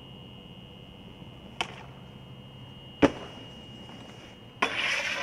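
Snowboard: two sharp knocks about a second and a half apart, then, a little past four seconds in, the board starts a loud, rough scrape across hard snow.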